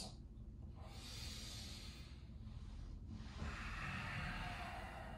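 A person breathing slowly and deeply, in yoga breathing: two long, soft breaths, the first about a second in and the second from about three and a half seconds on.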